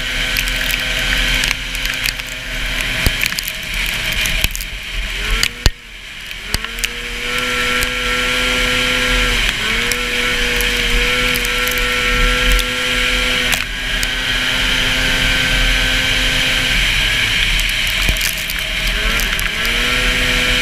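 Race snowmobile's 440 two-stroke engine running hard at high revs, lifting off about five seconds in with a sharp click, then climbing back up in pitch and holding; it eases off and climbs again a few more times near the end. Loud wind and snow-spray hiss rush over the onboard microphone.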